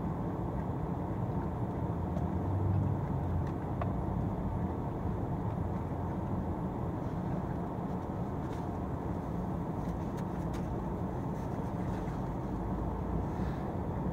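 Steady low rumble of a car heard from inside its cabin, with a few faint clicks from chewing a sandwich around the middle and later part.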